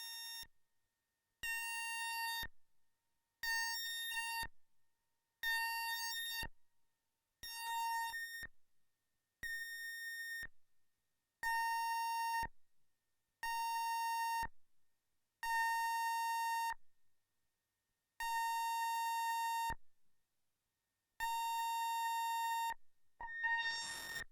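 Behringer Neutron analogue synthesizer sounding a bright, buzzy note of about a second, repeated at the same pitch roughly every two seconds and cut off abruptly each time. Near the end a hissing noise sweep rises over the last note.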